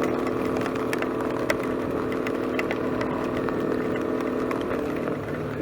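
A 250cc motorcycle engine running at a steady cruise, with a scatter of sharp ticks from hail striking. Near the end the engine note drops as the bike slows.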